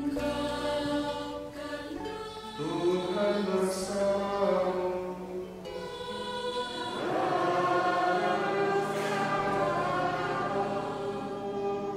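Choir singing a slow liturgical chant, with long held notes.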